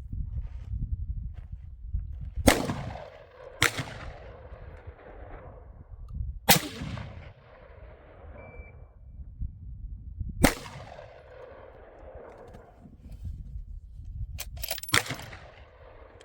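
Gunshots from firearms being fired at targets, each followed by a long fading echo. There are four single shots a few seconds apart, then a quick string of about four shots near the end.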